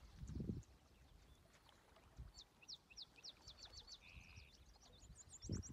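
Songbirds singing faintly in high, fast trills of quick falling notes, one run around the middle and another near the end. A brief low rumble sounds about half a second in.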